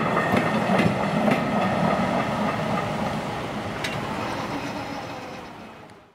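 Vintage wooden passenger coaches of a steam-hauled train rolling away over the track, wheels clacking now and then over rail joints. The sound fades steadily as the train recedes and dies away to silence at the end.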